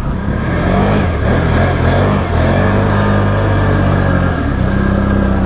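Can-Am Outlander ATV engine revving up as it pushes into deep water, holding high revs, then easing back about four and a half seconds in.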